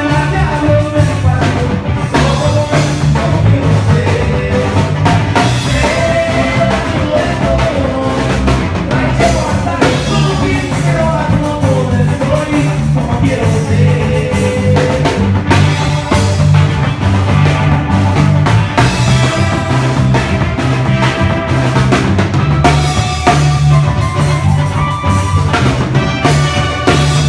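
Live band playing Tierra Caliente zapateado dance music: electronic keyboards carry the melody over a drum kit's steady beat and a repeating bass line.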